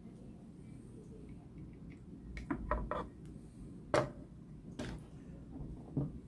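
A few light clicks and knocks of hard objects being handled: a short cluster a little over two seconds in, then single sharper clicks around four, five and six seconds in, over a low steady hum.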